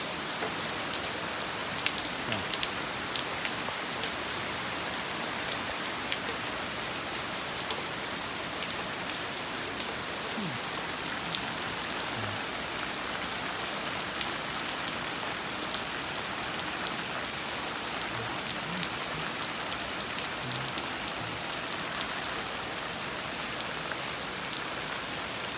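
Heavy rain falling steadily during a thunderstorm, with many sharp drops ticking on a nearby surface.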